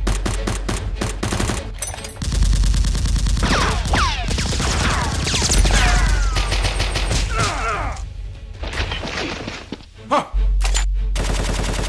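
Bursts of rapid gunfire over background music with a steady bass, with several falling whistles in the middle. The firing drops away briefly near the end, then starts again.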